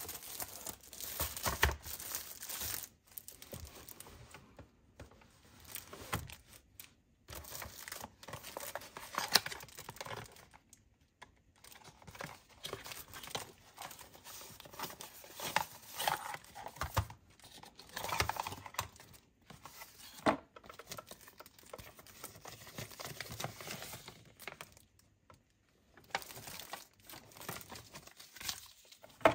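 Packaging being handled and opened by hand: irregular crinkling and tearing rustles in short bursts with brief pauses, and a few sharp clicks.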